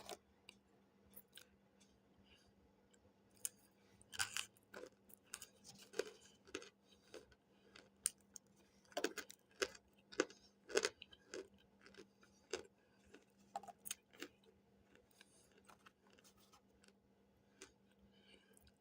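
Cornstarch chunks being bitten and chewed, close up: irregular dry crunches that start a few seconds in, come thickest around the middle, and thin out before the end.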